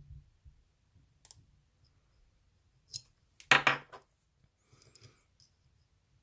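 Metal dimple pick and tension tool clicking and scraping in the keyway of a Mul-T-Lock dimple padlock: a few light clicks, then a louder rapid cluster of clicks about three and a half seconds in.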